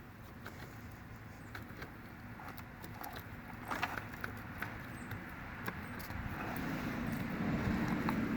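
Plastic squeegee spreading hardener-mixed filler into seams on a boat's gelcoat, making scattered short scrapes and light taps. A low steady hum builds from about two-thirds of the way through and is the loudest sound near the end.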